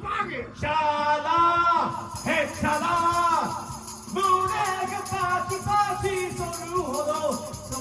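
Karaoke recording: a man singing an anime song over a karaoke backing track, with jingling percussion joining about two seconds in.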